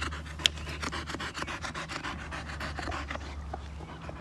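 A boxer dog panting steadily close by, with one sharp click about half a second in.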